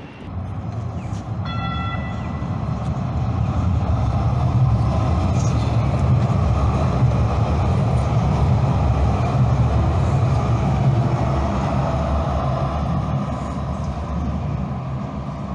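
Calgary Transit light-rail train running with a steady low rumble that builds over the first few seconds and eases slightly near the end. A brief high tone sounds about one and a half seconds in.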